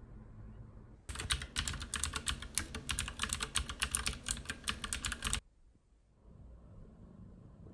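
Bedding rustling as someone moves under a duvet: rapid, irregular crackling clicks starting about a second in and cutting off suddenly about four seconds later.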